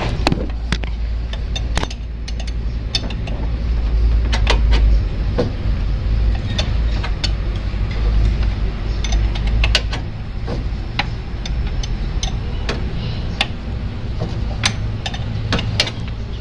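Metal wrench clicking and clinking against a bolt as it is worked in a tight spot on the engine, in short irregular ticks. Under it runs a steady low rumble.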